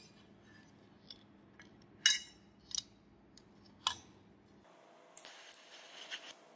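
A steel cleaver blade clicking and clinking sharply a few times as it is handled and set against a wooden plank. About five seconds in, an electric welding arc starts crackling.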